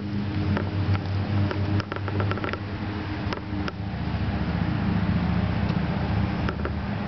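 A machine running with a steady low hum, with scattered light clicks and taps over it.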